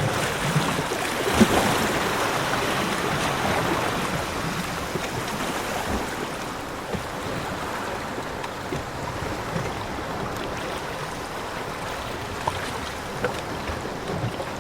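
Ocean waves washing onto a beach: a wave breaks about a second in, then the wash slowly fades, with a few small sharp clicks.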